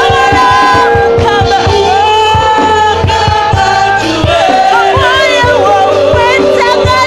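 Gospel worship song: a woman's voice leads into a microphone while other voices sing along, over held keyboard-like notes and a steady drum beat.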